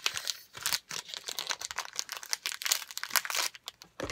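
Packaging crinkling in a dense run of quick crackles as PVC patches are handled and taken out.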